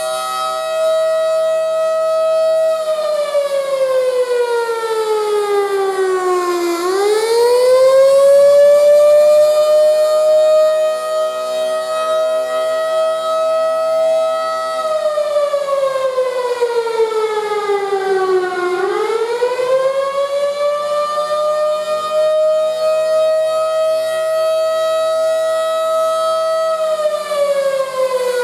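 Federal Signal electromechanical outdoor warning siren sounding a wail. One steady tone is held for about twelve seconds, then slides down over about four seconds and climbs quickly back up. This happens twice, with the pitch starting down a third time near the end.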